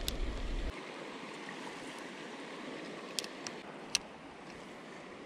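Steady outdoor background hiss, with a low rumble that stops abruptly under a second in and a few sharp clicks about three to four seconds in.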